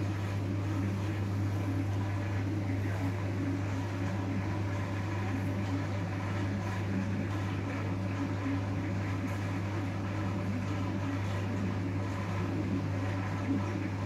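A steady low hum at an even level throughout.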